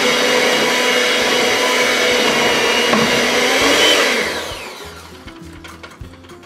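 Electric hand mixer running steadily with its beaters in a bowl of cake batter. Its motor whine falls in pitch and dies away about four seconds in as it is switched off.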